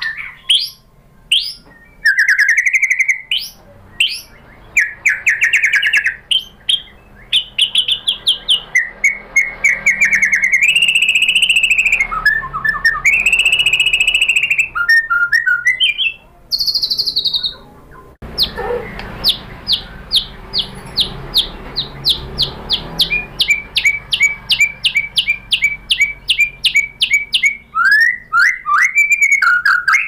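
White-rumped shama singing a loud, varied song of clear whistled phrases, buzzy trills and sliding notes. After the middle it breaks into a long run of rapid, evenly repeated notes, about four or five a second, for roughly ten seconds, then returns to varied phrases.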